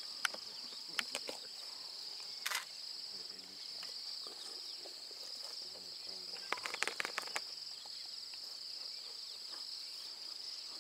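Insect chorus: a steady, high-pitched shrill buzz of crickets or cicadas in the bush. It is broken by scattered sharp clicks and snaps, with a quick run of them a little past halfway.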